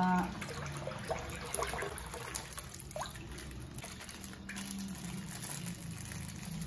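Coconut milk pouring from a plastic bag into a wide pan already full of coconut milk: a steady liquid gush and splash as it fills.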